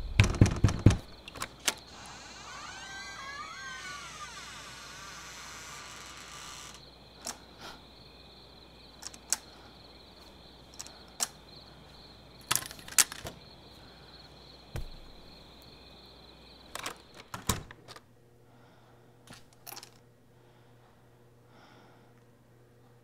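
A few sharp knocks on a wooden door, then a wavering creak for several seconds, followed by scattered taps and clunks of aluminium crutches as someone walks on them, with a dull thump about fifteen seconds in.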